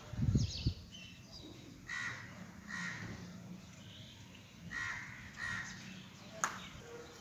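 A crow cawing: two pairs of short harsh caws, one pair near the middle and one later. A low thump comes just after the start.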